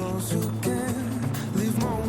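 Music: a song with a gliding melody line over held bass notes and a steady beat.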